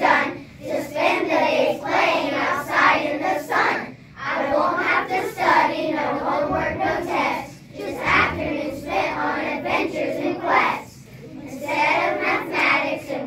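A class of young children singing together as a group, in phrases a few seconds long with short breaks between them.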